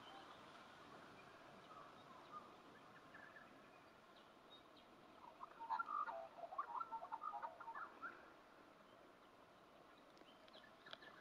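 Quiet outdoor ambience in which a bird calls with a couple of seconds of quick chirping notes about halfway through, plus a few faint scattered chirps.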